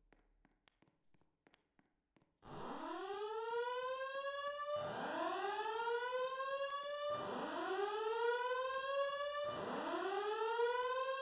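Fire alarm voice-evacuation speakers sounding the whoop evacuation tone: a rising sweep that climbs and levels off, repeated back to back every two and a half seconds or so, four whoops starting about two seconds in. It is the tone that alternates with the recorded 'please leave the building' message.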